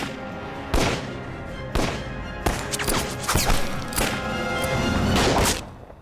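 Dramatic film score with a series of about seven sharp bangs under a second or so apart. The bangs are strongest near the end, and then the music and bangs cut off.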